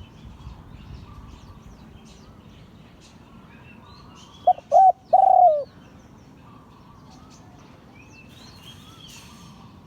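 Spotted dove cooing: one phrase of two short coos and a longer drawn-out coo, about halfway through. Smaller birds chirp faintly in the background.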